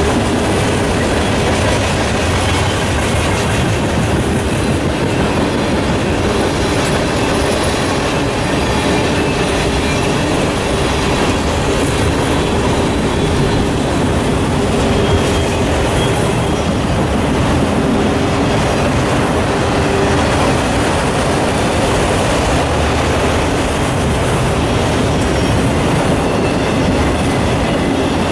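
Freight cars of a Norfolk Southern manifest train, boxcars and autoracks, rolling steadily past close by: loud, even wheel-on-rail noise from the passing cars.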